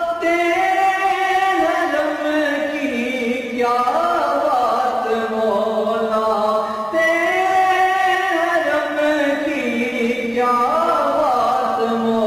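A nasheed sung as a slow chant, one voice holding long, wavering notes with melodic turns, slowed down and drenched in reverb.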